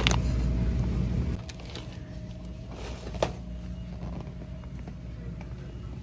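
Supermarket background noise: a low rumble for about the first second and a half, then a quieter steady hum with a faint tone and a single click about three seconds in.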